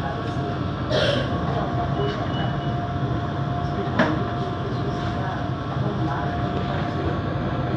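Electric commuter train running, heard from inside the car: a steady low rumble and hum with a steady motor tone over it. A brief higher whine comes about two seconds in, and a single sharp click about four seconds in.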